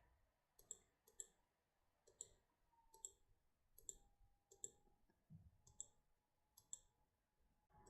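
About nine faint, sharp clicks at irregular intervals, roughly one a second, over near silence.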